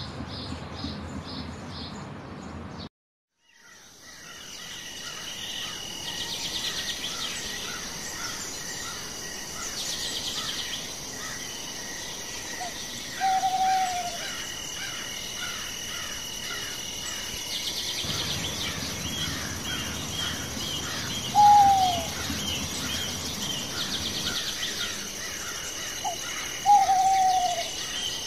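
Woodland ambience of steady high insect trilling and bird chirps, after a brief dropout about three seconds in. Three times, several seconds apart, a louder short falling bird call stands out, the last near the end.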